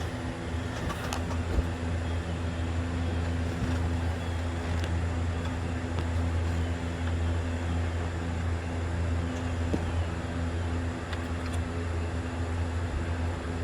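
Steady low mechanical hum with a few faint clicks and taps.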